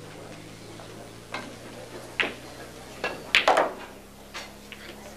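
A few scattered sharp clacks and knocks, with a louder quick cluster of three or four about three and a half seconds in, over a steady low electrical hum.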